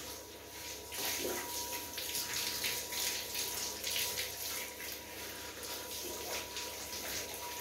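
Water spraying from a handheld shower head onto a dog's coat: a steady hiss that swells about a second in.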